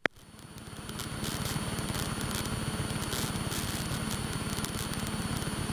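Light aircraft's piston engine and propeller running steadily in cruise, heard inside the cabin. The sound fades up over about the first second, then holds steady with a fine, rapid pulse.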